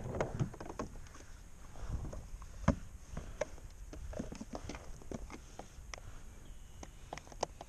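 Scattered knocks and clicks of gear being handled on a plastic fishing kayak while a caught redfish is brought aboard, with splashing at the boat's side at the start and one sharp knock a little under three seconds in.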